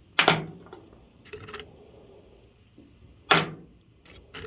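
Loose metal bolts being handled and set down on a work surface: two sharp clacks about three seconds apart, with a few light clicks between.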